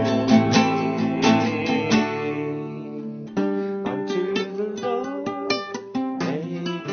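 Music led by a strummed acoustic guitar, with sustained chords and a fresh run of strokes starting about three seconds in.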